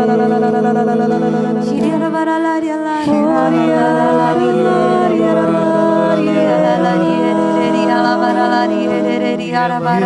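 Slow worship music: long, held sung notes that move to a new pitch every second or two.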